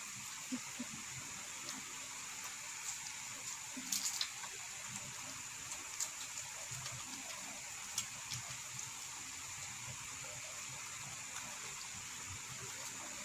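Faint eating sounds of two people eating rice and chicharon with their hands: soft chewing and mouth smacks, with a few sharper clicks about four and eight seconds in, over a steady background hiss.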